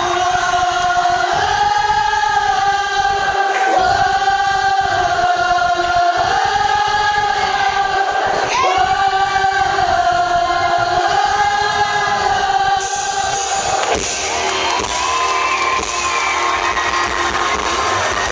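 Live rock band with a singer holding long, wavering notes over the band, in a loud concert recording; the vocal line drops out about 14 s in, leaving the band playing.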